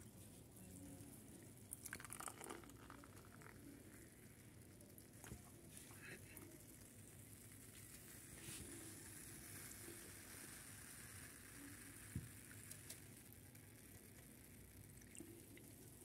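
Faint fizzing and pouring of 7 Up soda from a can into a plastic ice-lolly mould, with a few small clicks and taps of the can and mould.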